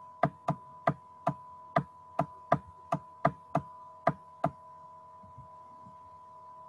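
A quick run of about a dozen sharp plastic clicks, roughly three a second, made while drawing on the computer screen; they stop about four and a half seconds in. A steady two-tone electrical hum runs underneath.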